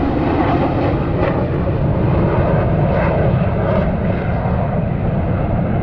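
Jet noise from the Red Arrows' BAE Hawk T1 jets flying their aerobatic display, a loud, steady rushing sound.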